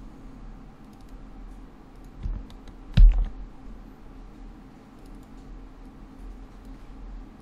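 Computer keyboard and mouse clicks: scattered light keystrokes over a low steady hum, with a softer knock just after two seconds and a louder, sharper one about three seconds in.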